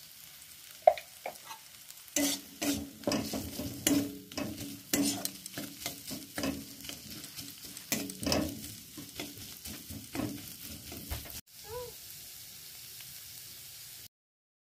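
Metal spatula stirring and scraping scrambled egg around a metal wok, in repeated strokes for about nine seconds over a low sizzle of frying. A single sharp tap comes about a second in, and the stirring stops about 11 seconds in.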